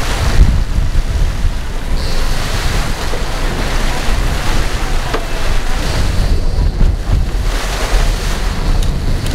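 Sportfishing boat backing down, its stern pushing into the sea so water churns and splashes around the transom, over a low engine rumble. Wind buffets the microphone.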